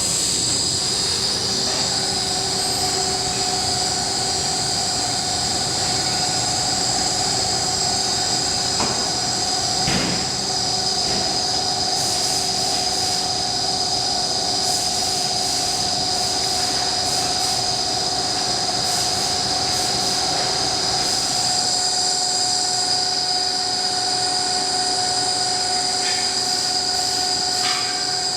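Delta Machinery DFM-125250 planer-milling machine running after start-up: a steady high-pitched whine over a lower machine hum, holding constant throughout.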